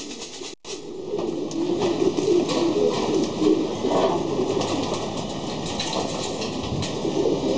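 Many racing pigeons cooing at once, low repeated warbling calls over a steady background hiss. The sound cuts out briefly about half a second in.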